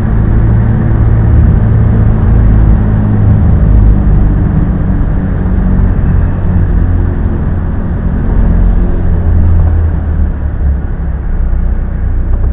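Car engine and road rumble heard from inside the cabin as the car drives slowly down a ramp and into an underground car park; a steady low drone.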